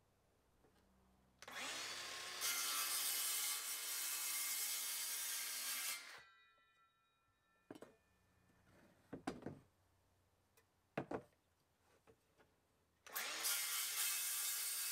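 Cordless circular saw spinning up and cutting through a wooden board for about four seconds, then winding down. A few short knocks follow, and a second cut starts near the end.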